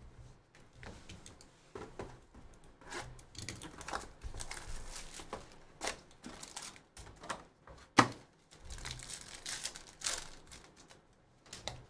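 Foil trading-card pack wrappers crinkling and being torn open by hand, with packs pulled from their cardboard box. Irregular rustles and small clicks, with one sharp knock about eight seconds in the loudest.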